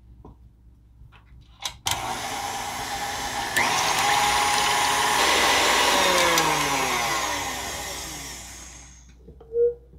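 Electric mixer whipping heavy cream. It starts about two seconds in and steps up to a higher speed a second and a half later, then winds down with a falling whine and stops near the end.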